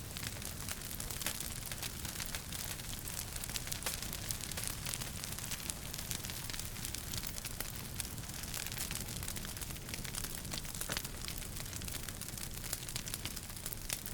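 Wood fire crackling in a fireplace: frequent small sharp pops and snaps over a steady hiss.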